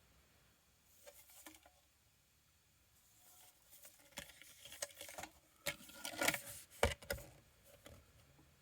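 Faint rustling and clicking as a new suspension control arm and its packaging are handled. The sounds are loudest near the end, where a few sharp knocks come close together.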